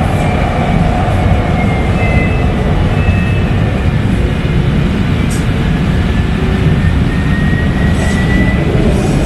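Kinki Sharyo SLRV light-rail car running on elevated track, heard from inside the cabin: a steady rumble of wheels and running gear with a faint high whine that slowly shifts in pitch.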